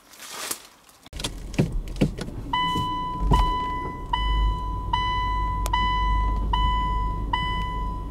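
A low rumble with a few clicks starts suddenly about a second in. From about two and a half seconds an electronic beeper sounds one clean tone over and over, about once every 0.8 seconds, roughly seven beeps.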